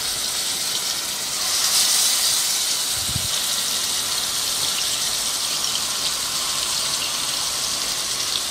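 Masala-coated rohu fish steaks sizzling in hot mustard oil in a frying pan, the sizzle swelling for a moment about two seconds in as another piece goes into the oil. A short low knock about three seconds in.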